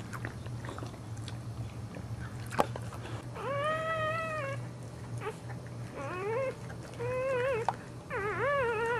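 Newborn Boxer puppy crying in four high-pitched squeals: one long arched cry, then three shorter wavering ones. A single sharp click comes a little before the first cry, over a steady low hum.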